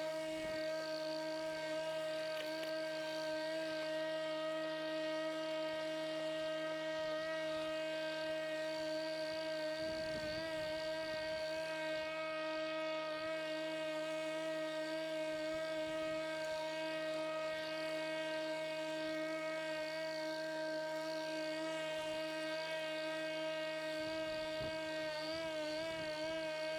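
Pellenc Rasion 2 Easy battery-electric lawnmower running with a steady motor whine, its pitch wavering briefly near the end.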